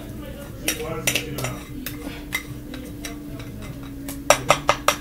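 A serving spoon scraping and knocking inside a glass bowl as the last of the pasta sauce is scooped out. There are a few scattered clinks at first, then a quick run of loud taps, about five a second, near the end.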